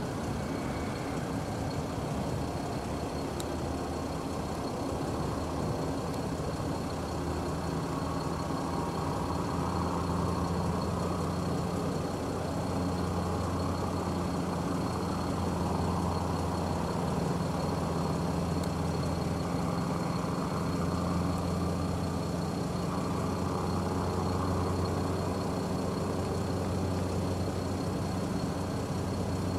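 Brantly B-2B light helicopter running steadily, its four-cylinder Lycoming piston engine and rotor making an even drone that swells a little in the middle.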